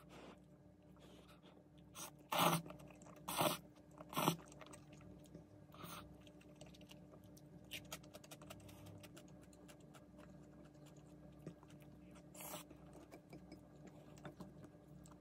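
Close-miked eating of jjajang ramyeon noodles: three loud, short mouthfuls of slurping and chewing about two to four seconds in, then quieter chewing with a couple more slurps later.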